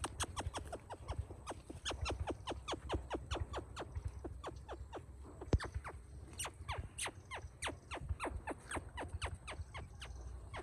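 Parrot calling: a rapid series of short, sharp, downward-sweeping chirps, about three to four a second, over a steady low rumble.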